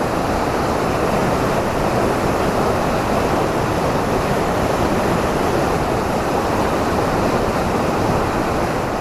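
Loud, steady rush of fast-flowing river water.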